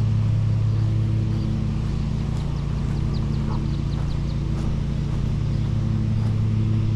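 A steady low mechanical hum, like a running engine, holds level throughout. Around the middle, a quick run of about eight short, high chirps cuts in over the hum.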